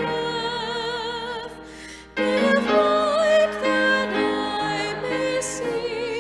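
A woman singing a hymn solo with marked vibrato, accompanied by grand piano. Her line dips for a short breath about two seconds in, then the next phrase comes in louder.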